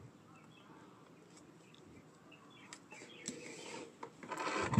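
Near silence at first, then from about two and a half seconds in faint, uneven rustling and rubbing of a paper instruction leaflet and cardboard box being handled, louder near the end.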